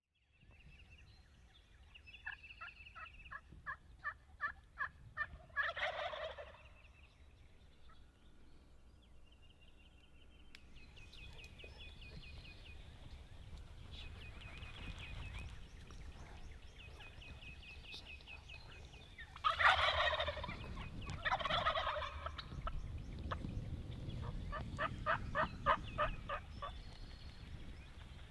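Rio Grande wild turkeys gobbling: one gobble about six seconds in, then two close together about twenty seconds in, the loudest sounds. A run of evenly spaced turkey yelps comes just before the first gobble, and another near the end.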